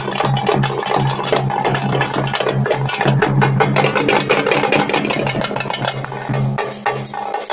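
Thappu frame drums beaten fast with sticks, together with a bass drum, over a steady low drone that drops out near the end.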